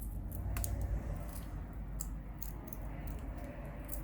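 Light clicks and scraping of small tools and parts as an internal component of a smartphone is prised apart, over a low steady hum.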